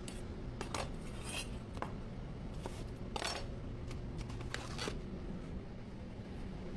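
Metal cooking utensils clinking and scraping against cookware in irregular strokes, with a few longer scrapes, over a steady low background hum.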